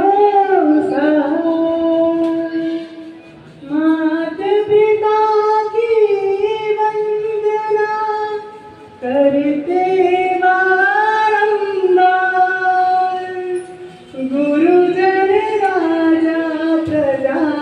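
A solo voice singing a devotional song (bhajan) into a microphone, without instruments. It moves in long, held, ornamented phrases of about four seconds each, with short pauses for breath between them.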